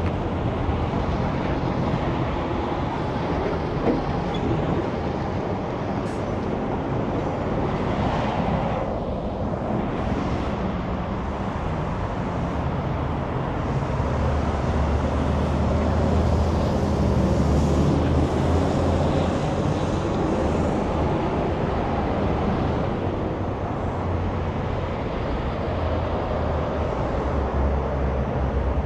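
Steady low rumble and roar of heavy vehicles going by, swelling slightly midway.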